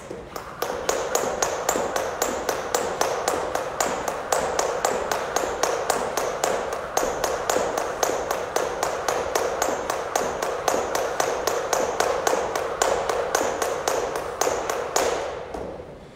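Jump rope skipping on a gym floor: the rope and the feet tap it in a quick, steady rhythm of single skips. The tapping stops about a second before the end.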